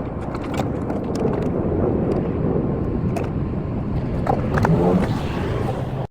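Power tool cutting through the metal wall of a bus, a loud steady rattling run with scattered sharp clicks that cuts off abruptly at the end.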